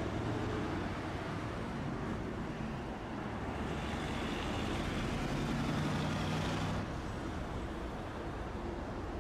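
A passing motor vehicle: a low engine hum over a steady rushing noise. The upper hiss swells in the middle and drops away suddenly about seven seconds in.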